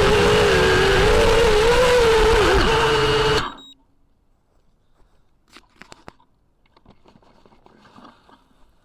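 FPV quadcopter's motors and propellers whining at a wavering pitch, cutting off abruptly about three and a half seconds in. Faint clicks and small handling sounds follow.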